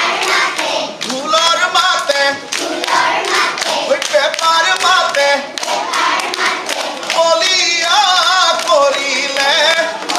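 Singing, as in a Bihu folk song, over sharp percussive beats keeping a rhythm.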